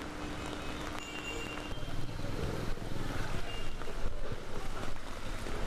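Vehicles moving through floodwater on a street, engines running with water churning around the wheels. A steady hum stops about two seconds in, and a louder, rougher low rumble follows.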